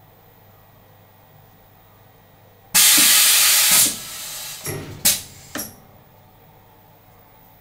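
Pneumatic air on a blow moulding machine: a loud blast of compressed-air hiss about three seconds in, lasting about a second and tailing off, then three short sharp air bursts as the mould opens on the freshly blown float.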